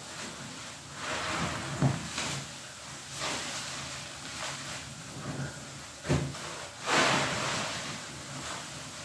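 A soap-soaked sponge being squeezed and rubbed in thick dish-soap suds, wet squishing of foam and water in uneven strokes. Several squeezes stand out louder, the biggest about six to seven seconds in.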